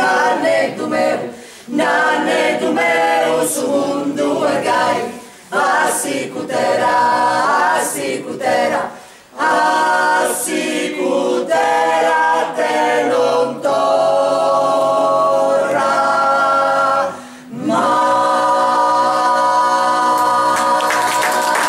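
Small mixed choir singing a cappella in Sardinian, phrase after phrase with short breaks for breath, closing on a long held chord near the end; applause starts just as it ends.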